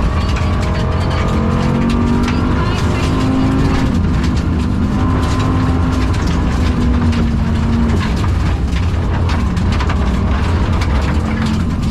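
Rally car engine heard from inside the cabin, climbing in pitch for a few seconds and then easing off and holding lower, running with a bad misfire that leaves it down on power. Many sharp clicks and crackles run alongside the engine.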